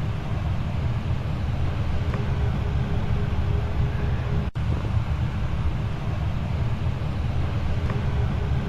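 Goodman furnace running: a steady low rumble with a faint steady hum over it.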